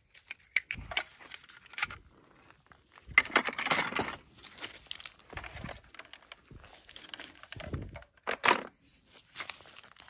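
Dry grass crackling and plastic toy guns knocking as they are handled, picked up and laid down, in irregular rustles and clicks. The longest rustle comes about three seconds in and a sharp knock about eight and a half seconds in.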